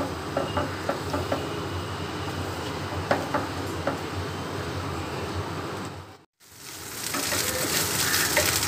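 Beaten eggs sizzling in hot oil in a nonstick frying pan as a wooden spatula stirs and scrapes them, with small ticks of the spatula against the pan. The sound drops out briefly about six seconds in and comes back as a brighter, louder sizzle.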